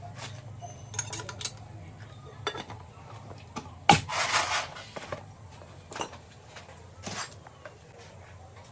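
Metal tools and engine parts clinking and knocking against each other, with one louder clank about four seconds in followed by a short rasping noise, over a steady low hum.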